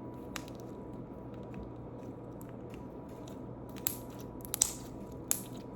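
Slime being squeezed and played with in the hands, giving a few scattered sharp clicks and pops, the loudest about four to five seconds in, over a steady low hum.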